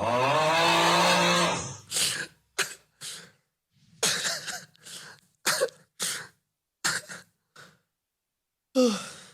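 A man's exaggerated meme snoring: one long, loud, pitched snore lasting about a second and a half, then a choppy string of about a dozen short snorts and gasps with gaps between them.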